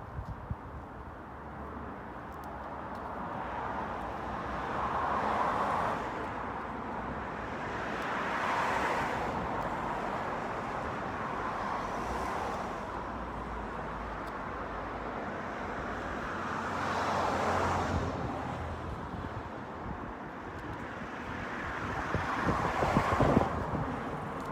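Road traffic: cars passing one after another, each swelling and fading over a second or two, over a steady low rumble of wind on the microphone.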